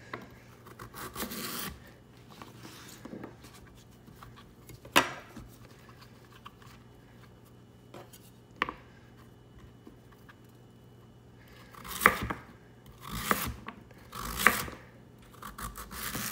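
Knife slicing raw sweet potato into fry strips on a plastic cutting board, the blade tapping the board at the end of each cut. A few scattered single cuts, then several in quicker succession near the end.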